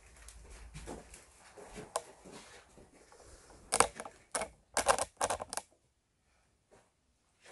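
Rumbling handling noise from a handheld phone, then a quick run of about six sharp clicks over a couple of seconds, followed by near silence.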